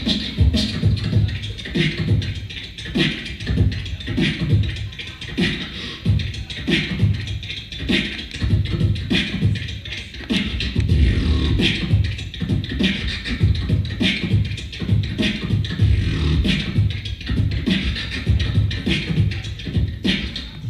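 Solo beatboxing into a handheld microphone: a steady rhythm of deep kick-drum sounds and sharp snare-like clicks made with the mouth.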